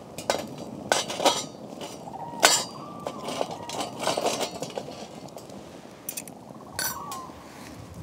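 Sharp metallic clinks and knocks from a stainless steel Firebox folding wood stove being handled, irregularly spaced, the loudest about two and a half seconds in.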